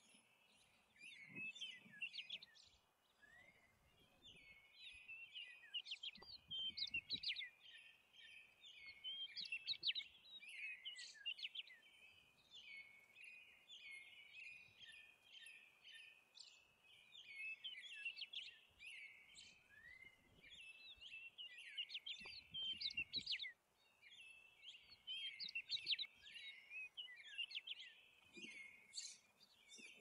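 A chorus of small birds chirping and twittering, many short quick notes overlapping almost without pause, with brief lulls.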